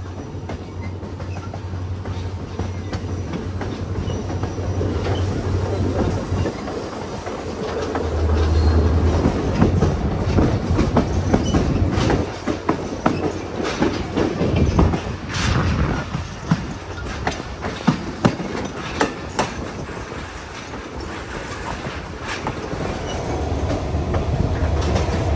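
Passenger excursion train rolling along the track, heard from aboard. A steady low rumble runs under the wheels clicking and clacking over rail joints, and the clacking is thickest and loudest through the middle stretch.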